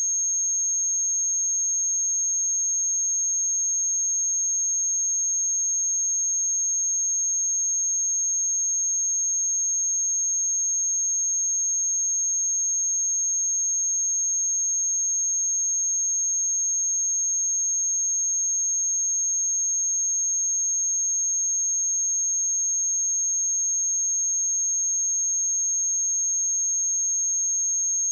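A pure 6478 Hz sine-wave test tone, one steady high-pitched note held without change.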